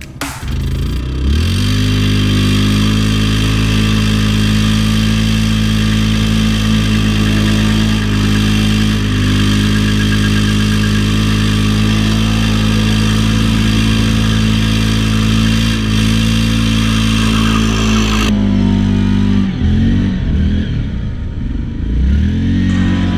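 Yamaha Grizzly 700 ATV's single-cylinder engine revs up about a second in and holds at steady high revs while its rear car tires spin in a burnout on frozen ground, with a steady hiss over the top. The hiss cuts off about 18 seconds in, and the engine revs drop and rise again twice near the end.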